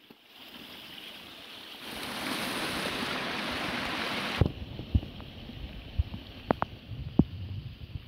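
Rain-swollen stream of muddy runoff rushing and splashing over rocks. The rush grows louder about two seconds in and drops off suddenly a little after four seconds, leaving a quieter flow with scattered low thumps and a few sharp clicks.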